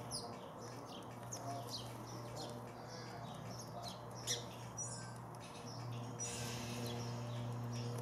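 Sparrows chirping at a garden feeder: many short, high, downward chirps scattered irregularly, one sharper chirp about four seconds in. Near the end wings flutter as birds fly on and off the feeders.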